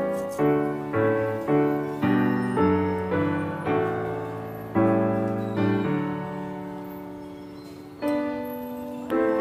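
Background piano music: struck notes and chords at an unhurried pace, each fading after it is struck, with one longer chord left to die away in the second half.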